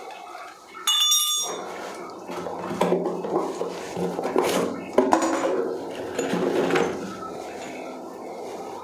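Rustling of paper and plastic wrapping and a cardboard box as new plumbing fittings are unpacked by hand, with light clinks and a sharper knock about five seconds in. A brief high squeak about a second in.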